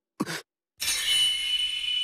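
Dramatic anime sound effect: a sudden sharp metallic 'shing' about a second in, leaving a single high ringing tone that rings on and slowly fades.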